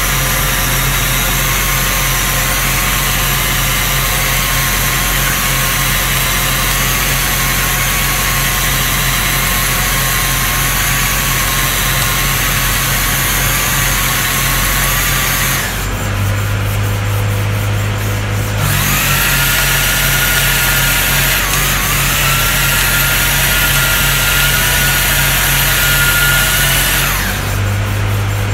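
Portable electric cylinder-boring machine running with its cutter in the bore of a Ghazi 480 tractor engine block: a steady motor whine over a low hum. About halfway it stops for about three seconds, leaving only the low hum, then starts again with a rising whine that settles. It stops again near the end.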